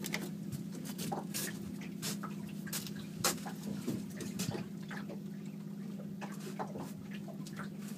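Boat's outboard motor running steadily, a constant low hum, with scattered sharp clicks and knocks on top.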